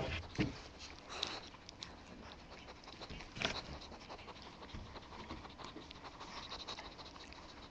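Bulldogge puppy nosing and mouthing at kibble held out by hand, close to the microphone: soft scattered small clicks and rustles, with a couple of louder knocks about half a second in and past three seconds.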